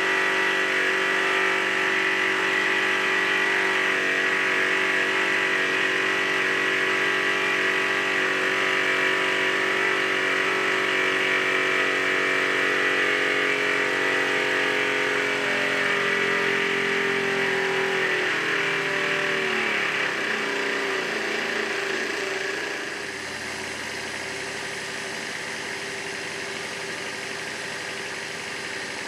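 Microcosm model steam engines running steadily at speed on live steam. About 16 seconds in, their running note falls as the engines slow, and the sound drops quieter from about 22 seconds in.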